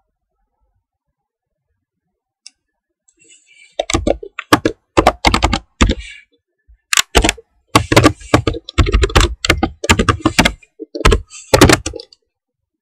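Computer keyboard typing: a quick run of loud key clicks that starts about four seconds in, with a few short pauses, and stops shortly before the end.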